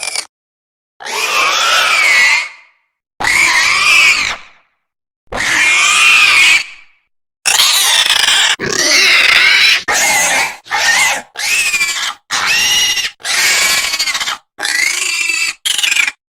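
Designed Deinonychus dinosaur calls: three long calls of about a second and a half each, their pitch wavering up and down, then a faster run of about nine shorter calls with gaps between them.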